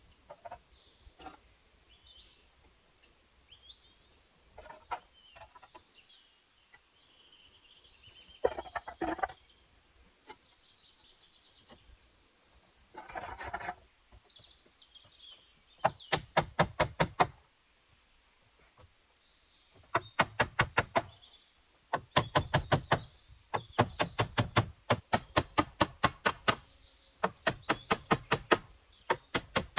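Small birds chirp faintly while a few soft clicks and scrapes sound. About halfway through, loud, sharp knocking starts, fast runs of about six to eight strikes a second lasting a second or two each with short pauses, like a tool being struck repeatedly on wood.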